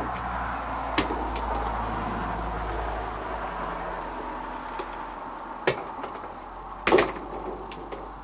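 Cookies knocking on wooden deck boards, a sound meant to call the raccoons to the food: two sharp knocks close together about a second in, another just before six seconds, and the loudest a second later. A soft rustle of hands in the cookie container fades out over the first three seconds.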